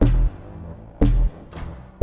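Background music with a heavy, deep drum beat about once a second and a lighter hit between the beats.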